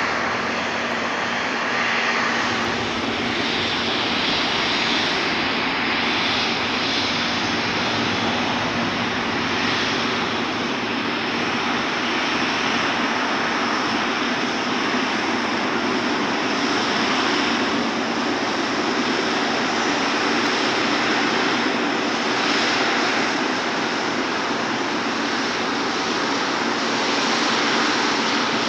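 Jet airliner engines running, a steady rushing noise with a faint constant hum underneath and no marked rise or fall.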